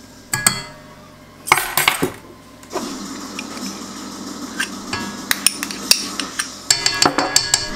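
Metal spoon and spatula clinking and tapping against a steel mixing bowl and a small ceramic bowl as vanilla and thick cream are added, with a quick run of taps near the end.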